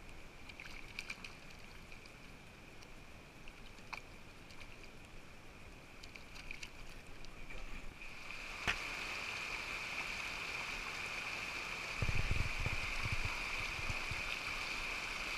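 Mountain creek water running over rocks: soft at first with a few small clicks and splashes, then a louder steady rush of fast water from about eight seconds in. Irregular low thumps near the end.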